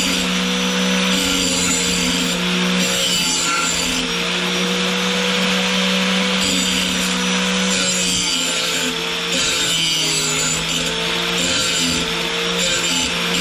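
GSTP Model 5005 electric lawn mower blade sharpener running with a steady motor hum while its grinding wheel works the edge of a mulching mower blade, the grinding coming and going as the blade is moved across the wheel.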